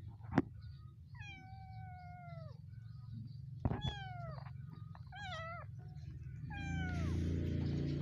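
A small kitten meows four times in high, drawn-out cries while a monkey paws and grabs at it. The first cry is long and held, and the later ones are shorter and drop in pitch. Under them are a couple of sharp knocks and a low rumble that grows louder near the end.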